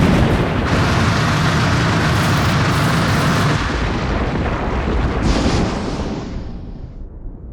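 Designed explosion sound effects: a sudden heavy blast opens into a long rumbling roar, with a second burst about five seconds in, then dies away near the end.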